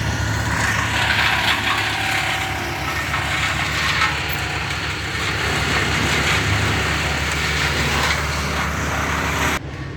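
Stump grinder at work: its engine running steadily while the cutter wheel chews into a pine stump, the grinding noise swelling and easing by turns. The sound cuts off abruptly near the end.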